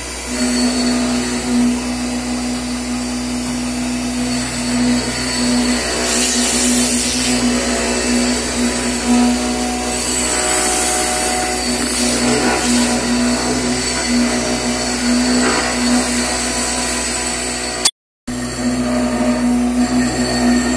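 Steady whine of a CNC milling machine's spindle motor running over a wooden casting pattern, the level shifting a little as it works. It breaks off briefly near the end.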